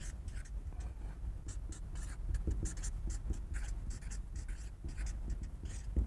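Marker pen writing on flip-chart paper: a quick run of short, scratchy strokes as the words are written.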